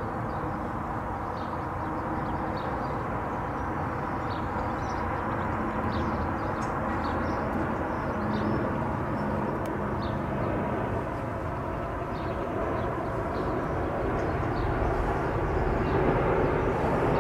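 Boeing 787-9 airliner with GEnx-1B engines passing overhead on approach: a steady engine rumble that grows louder near the end.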